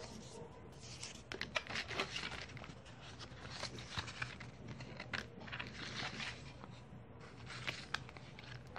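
Paper and thin card of an iPhone 5c box's manual pack being handled: soft, irregular rustling and crinkling with light taps throughout.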